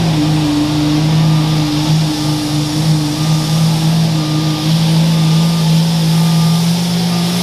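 Dodge Ram's Cummins inline-six turbo diesel running flat out under heavy load while pulling a weight-transfer sled, its engine note holding one steady pitch.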